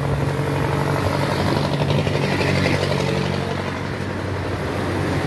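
An engine running steadily at idle: a low, even hum.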